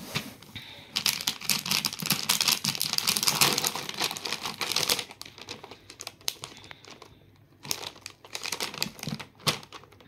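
Plastic packaging crinkling and crackling as it is handled: the clear plastic film over the jewellery and the bubble wrap around the box. It is dense for the first few seconds, then thins to scattered crackles and clicks.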